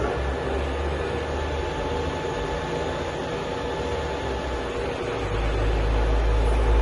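WMW universal milling machine running, a steady machine whine with a few held tones over a noisy mechanical bed. About five seconds in, a deeper hum joins and the sound slowly grows louder.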